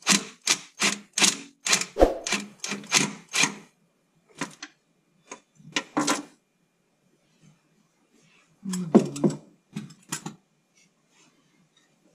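A hand ratchet clicking in a quick even run of about ten strokes, then scattered metal clicks and a short rattle about nine seconds in, as the bolts of a Ford Focus's stock turbo diverter valve are backed out and the valve comes off.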